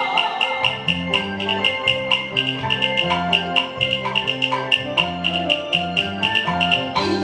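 Taiwanese opera (gezaixi) accompaniment band playing an instrumental passage between sung lines: melodic lines over bass notes, kept in time by sharp percussion strokes at about four a second.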